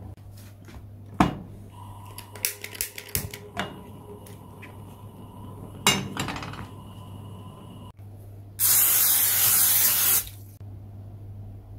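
Aerosol can of nonstick cooking spray hissing into an aluminium pot for about two seconds near the end. Before it, a few sharp knocks and clatters of metal cookware, one with a brief ringing.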